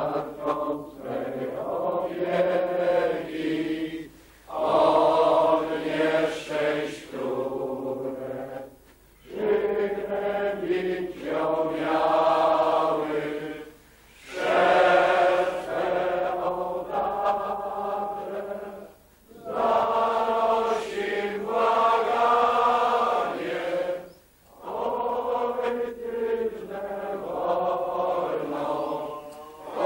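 A congregation of many voices singing a slow hymn in long phrases, each about five seconds, with short breaks for breath between them.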